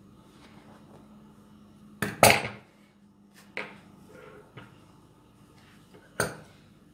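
Metal dressmaking scissors clacking against the sewing table. The loudest is a ringing double clack about two seconds in, a couple of lighter knocks follow, and there is another sharp clack just after six seconds.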